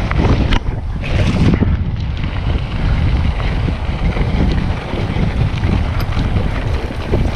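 Wind buffeting the microphone: a loud, steady low rumble, with a brief louder rush about a second in.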